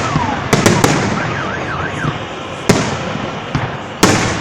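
A loud fireworks display going off close by: a quick run of sharp bangs within the first second, another about halfway and a heavy bang near the end. Between them a whistle falls in pitch at the start and a wavering whistle runs in the middle.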